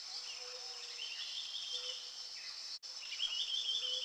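Jungle ambience of insects: a steady high drone with repeated chirping trills that come and go, cut off for an instant just before three seconds in.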